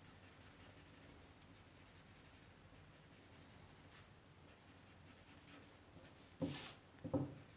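A pen drawing on paper, with faint scratchy strokes. Near the end come two short, louder scrapes or rustles.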